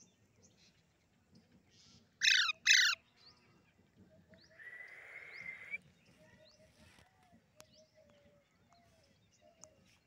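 Two loud, harsh squawks about half a second apart from an Alexandrine parakeet (pahadi tota). About two seconds later comes a quieter held note lasting about a second.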